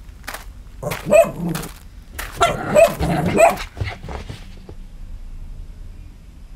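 A dog barking in two bouts, the first about a second in and a longer one from about two to three and a half seconds, over a low steady hum.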